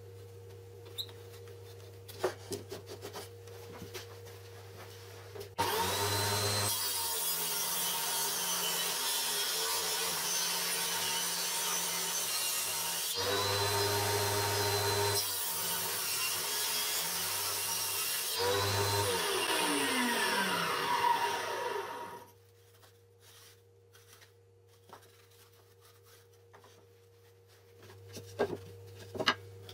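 A table saw starting up with a rising whine about six seconds in and running loudly, cutting a board. Near the end its whine falls steeply as the blade spins down, and it cuts off about twenty-two seconds in. Light handling clicks and rubs before and after the run.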